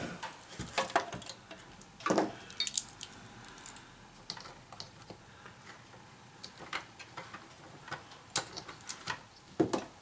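Scattered clicks, taps and light knocks of plastic and metal parts being handled as a reverse-threaded part is unscrewed on a humidifier, with a louder knock about two seconds in and another near the end.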